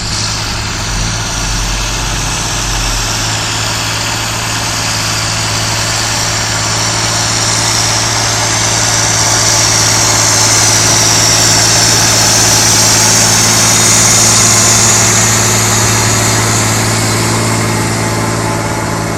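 John Deere 8410 tractor's diesel engine running steadily, growing louder through the middle and easing off again toward the end.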